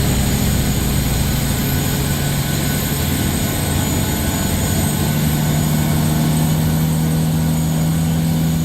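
Steady jet aircraft noise in a Boeing 737-800 cockpit before engine start: a low hum with a high, steady whine over a rushing background.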